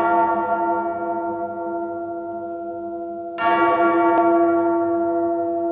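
A bell-like tone ringing and slowly fading, struck again about three and a half seconds in and ringing on.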